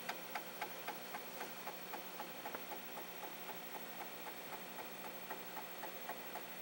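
Commodore 1541 floppy drive formatting a disk with a fast-format program: the read/write head steps track by track, clicking about four times a second over a faint steady hum.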